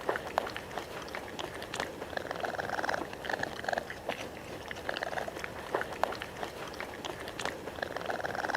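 Raccoon making a string of short, buzzy purring calls, with sharp clicks scattered among them.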